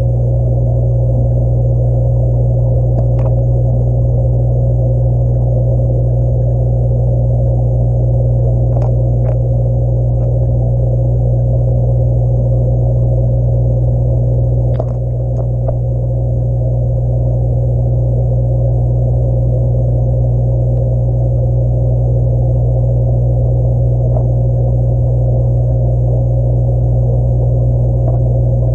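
Steady low hum of the aquarium heard through a camera submerged in the tank. A handful of short, sharp clicks are spread through it, the crunch of a figure 8 puffer cracking ramshorn snail shells.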